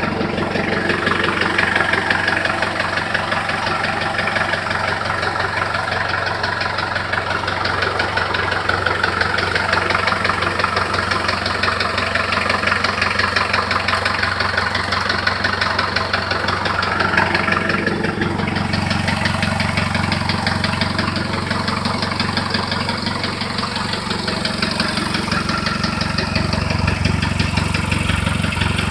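Diesel engine running with a knock whose cause the owner cannot place. The engine note shifts slightly a little past halfway and again near the end.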